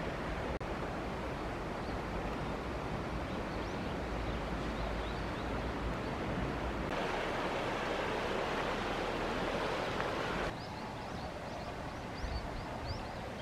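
Steady outdoor rushing noise that changes abruptly twice as the shots change, louder and brighter in the middle stretch. Faint high chirps come in near the end.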